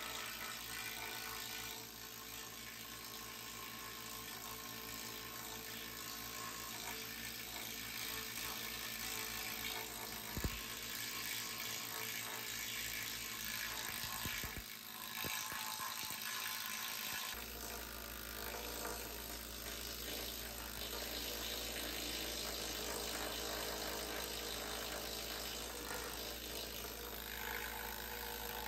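Pneumatic needle scaler hammering rapidly against the rusty steel frame rail of a Triumph TR6 chassis, a steady fast rattle. The way the needles strike is used to tell solid steel from rust-rotted metal they would punch through.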